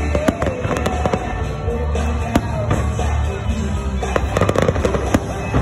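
Aerial fireworks bursting, a rapid string of sharp bangs and crackles, over music with a steady low bass.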